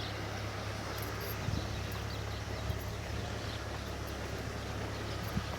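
Case 580N backhoe loader's diesel engine running steadily, with a few light knocks.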